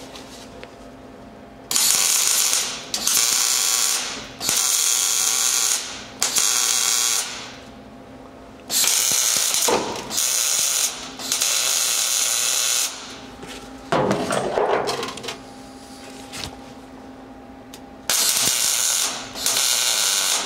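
MIG welder laying short welds on the steel floor patch panel of a 1961 VW Bus: a crackling buzz in about eight bursts of one to two seconds each, with short pauses between. A few knocks fall in the pauses.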